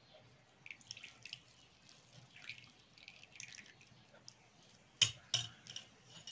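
Juice dripping and trickling from squeezed grated cucumber pulp into a small ceramic bowl, as faint scattered drips. Two sharp knocks come about five seconds in.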